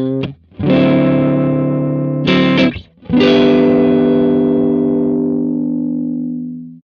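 Electric guitar played through a Bort 391 valve amp head with a kenotron (tube) rectifier, with distortion: a few chords, the last struck about three seconds in and left to ring out before it stops just before the end.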